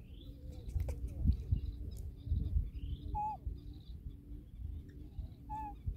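Birds calling outdoors: a few quick rising chirps and a short, clear falling call heard twice, over a low rumble.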